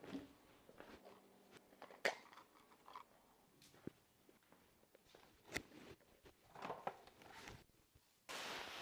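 Fishing bait being mixed by hand: faint, scattered crunches and clicks of dry grainy bait being stirred and squeezed. A steady hiss comes in suddenly near the end.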